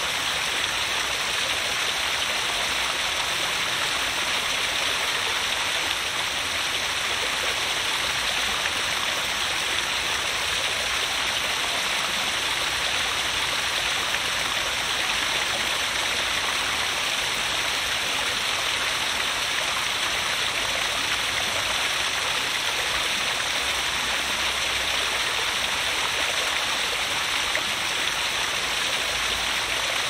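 Small waterfall pouring in several streams over rocks into a pond: a steady, even splashing with no change.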